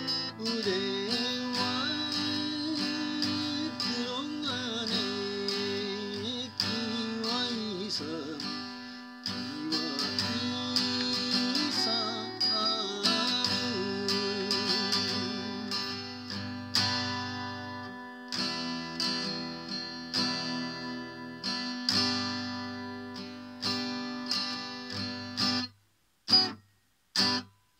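A man singing a slow song while strumming a steel-string acoustic guitar with a capo. The voice drops out about halfway through and the guitar plays on alone, breaking off a couple of seconds before the end into a few short knocks.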